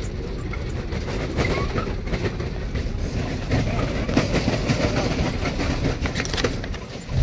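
Small tourist ride-on train running along: a steady low rumble with rattling and clattering from the carriages.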